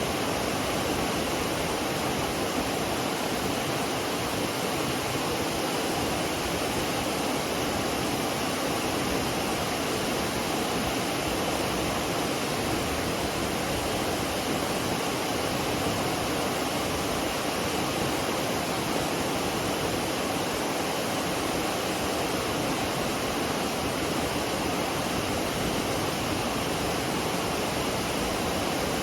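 Waterfall on the McCloud River pouring steadily: a constant, even rush of falling water.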